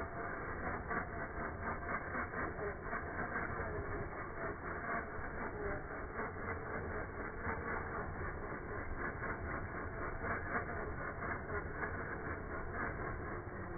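1/10-scale RC rock crawler's motor and gears running steadily with a fast rattling, its tyres spinning and scrabbling on loose gravel and dirt as it struggles up a slope.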